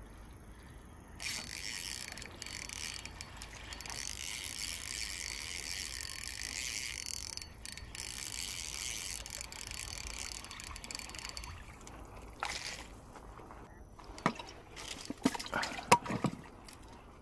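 Fishing reel being cranked to wind in line, a steady high whirr for about ten seconds. Then a run of sharp plastic clicks and knocks from a small tackle case being handled.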